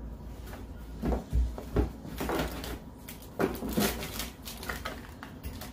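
Several knocks and rustles of packaged craft supplies being picked up and handled, most of them between about one and four seconds in.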